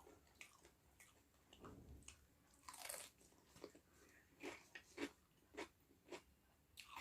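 A person biting and chewing crunchy food close to the microphone: faint soft crunches, a louder one about three seconds in, then a crunch roughly every half second.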